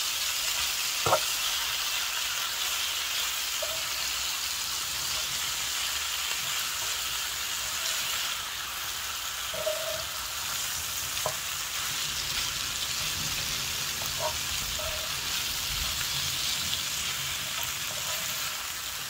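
Stir-fry of ground chicken, eggplant and bell peppers sizzling steadily in an electric skillet while being stirred with a slotted spatula, which clicks against the pan a few times.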